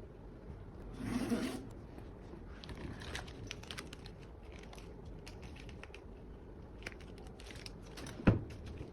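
Packaging being handled and torn open during an unboxing: a rustling, tearing burst about a second in, scattered light crinkles and clicks, and a single thump near the end.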